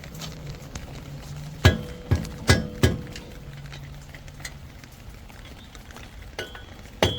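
A hammer striking a wheel stud on a Ford F350 dually's front hub to knock the hub assembly loose, heard as four sharp metallic blows with a short ring, less than half a second apart. One more blow lands near the end.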